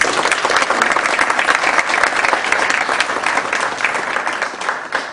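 Audience applauding: many hands clapping in a dense, steady patter that thins a little near the end.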